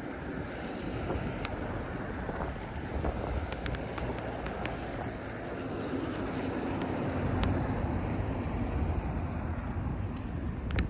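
Wind buffeting the microphone while riding along a rain-wet road, with a steady rumble of tyre and road noise that grows louder past the middle and a few faint ticks.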